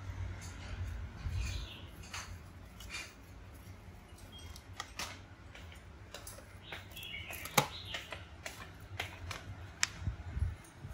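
Mostly quiet room with scattered faint clicks and taps, a low rumble at the start and again near the end, and two brief faint chirps, one about a second in and one about seven seconds in.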